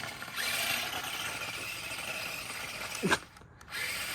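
Electric motor of a radio-controlled monster truck whining under throttle. About three seconds in it gives a short, sharp rev, then cuts out for about half a second before picking up again.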